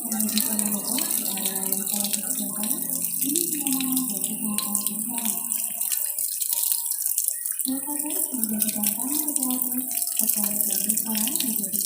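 Steady rushing water with a bright hiss, under a wavering pitched voice-like sound that drops out for a moment a little past halfway.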